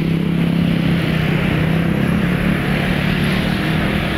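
Motor scooter and motorcycle engines running in dense traffic, a steady drone with a continuous low hum.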